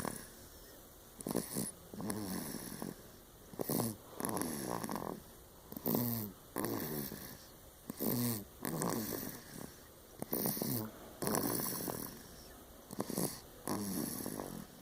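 A four-month-old baby snoring in deep sleep, a snore with each breath about once a second. Many of the snores have a squeaky pitch that falls away.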